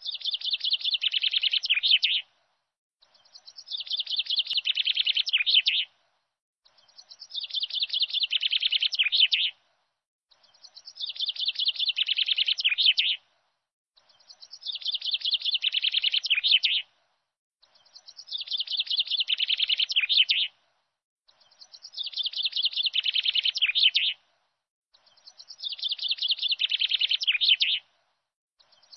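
Recorded bird song used as a backing track: the same fast, high trilling phrase of about two seconds, growing louder as it goes, repeats identically about every three and a half seconds with short silences between.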